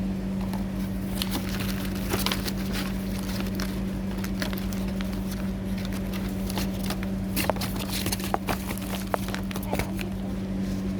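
Gift items and their packaging being handled, giving scattered clicks, crackles and rustles over a steady low hum.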